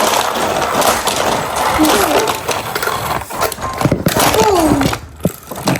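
Plastic toy trains and track pieces rattling and clattering, with a young child's voice making drawn-out gliding sounds.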